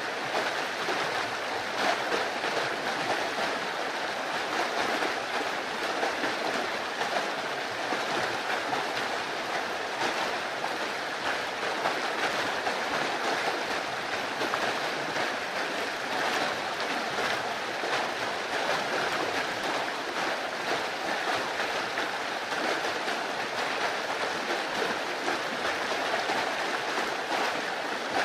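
Creek running high with storm water: muddy water rushing and splashing over rocks in a steady, unbroken rush.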